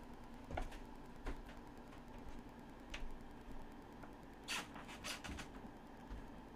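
Faint room tone in an empty room: a steady low hum with a few scattered small clicks, and a brief cluster of rustles about four and a half to five seconds in.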